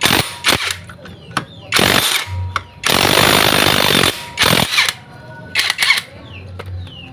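Pneumatic impact wrench running in several short bursts, the longest about a second, while a nut on the scooter's CVT is undone.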